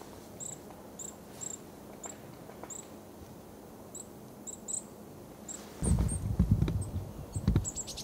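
Short, high, thin calls of small birds at a suet feeder, a dozen or so single notes. From about six seconds in they give way to a run of loud, irregular knocks and low thumps.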